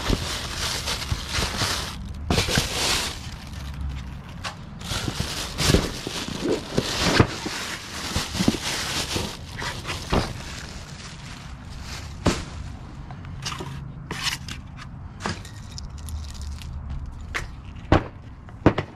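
Plastic bag crinkling and rustling, with foam packing and cardboard rubbing, as a new motor is pulled out of its packaging; a few sharp knocks are scattered through.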